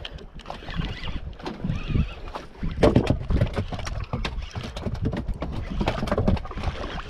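Water sloshing against a small boat's hull with wind buffeting the microphone, broken by scattered clicks and knocks of handling the spinning rod and reel; the loudest knock comes about three seconds in.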